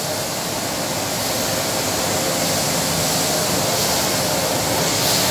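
Rice mill machinery running at the paddy dryer: a steady rushing noise with a faint hum, growing a little louder over the first second or so.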